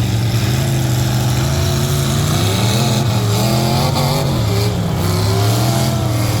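Truck engines in a demolition derby running loud and revving, their pitch rising and falling unevenly throughout.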